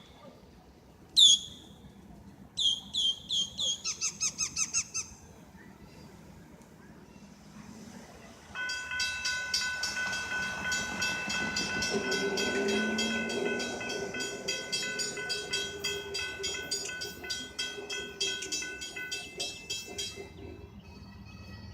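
Railroad grade-crossing warning bell ringing in fast, even strokes from about a third of the way in, stopping shortly before the end, with the low rumble of the approaching freight train underneath from about halfway. Before the bell, a bird gives a sharp falling call and then a quick run of chirps.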